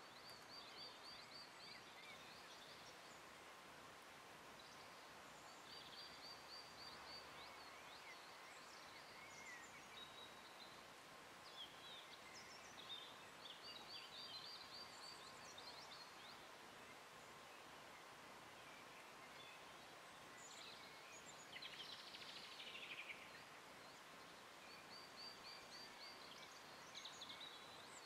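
Faint outdoor quiet with small songbirds: a short high trilled phrase repeated four times, with scattered chirps between, over a faint steady tone. About two-thirds of the way through comes a brief rustle.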